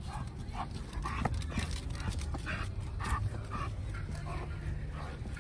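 A dog straining against its leash, making short breathy panting sounds about twice a second, over a low steady rumble.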